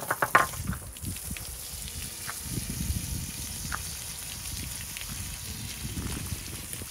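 Water from a garden hose spraying over cleaned mud crab pieces and splashing onto the ground, a steady rush and spatter. A few light knocks near the start.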